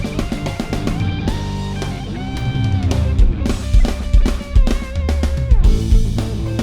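Rock music: electric guitar with bent notes over bass and a drum kit keeping a steady beat.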